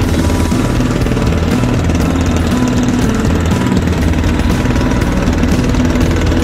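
Small motorboat's engine running steadily with a rapid, even knocking beat, heard from aboard the boat.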